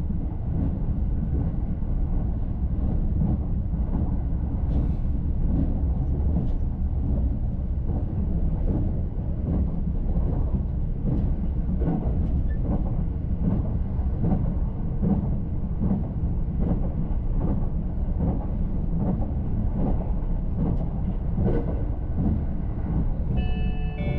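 Limited express train (E353 series) running at speed, heard from inside a passenger car: a steady low rumble with faint clicks from the wheels and track. A short sequence of clear stepped tones begins just before the end.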